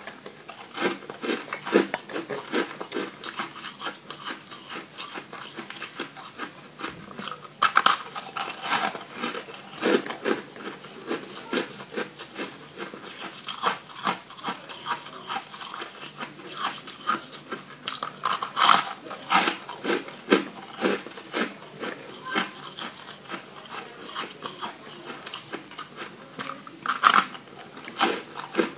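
Crunchy coloured shaved ice being bitten and chewed: a continuous run of small crunches, with a few louder, sharper bites.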